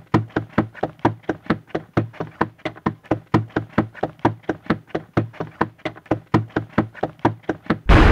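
Rapid, even knocking footsteps, about four a second, a walking sound effect. Near the end a loud booming hit rings on and slowly fades.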